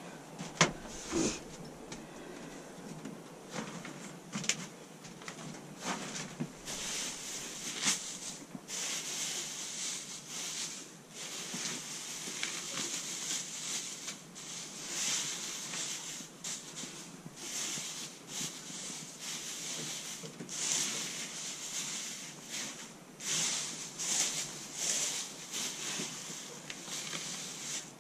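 Dry litter bedding rustling and crackling as it is pushed and spread by hand over a coop floor, in irregular strokes. A couple of sharper knocks about a second in.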